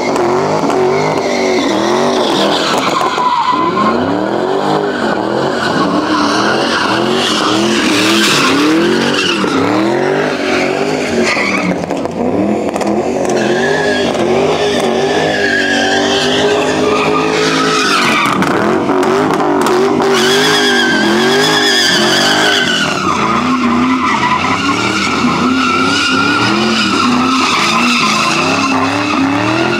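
Dodge HEMI V8 revving up and down over and over while a drifting car's rear tyres squeal, with one steadier stretch of held revs about halfway through.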